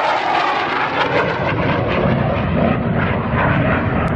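Jet noise from a Denel Cheetah C fighter's single SNECMA Atar 9K50 turbojet as the jet flies a display pass. The sound is steady and loud, and it turns deeper about two seconds in.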